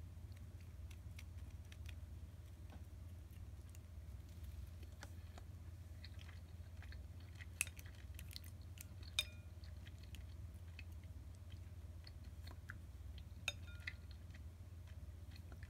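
Faint chewing and mouth sounds of someone eating soft simmered flounder with chopsticks, with three sharp clicks of the chopsticks on the ceramic bowl, over a steady low hum.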